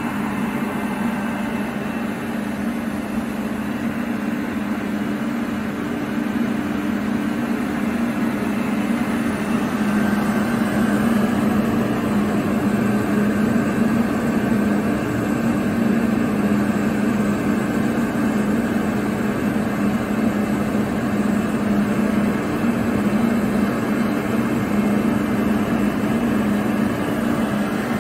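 KAESER SK27T rotary screw air compressor running steadily: a constant mechanical drone from the motor and screw airend under a wash of air noise, getting a little louder partway through.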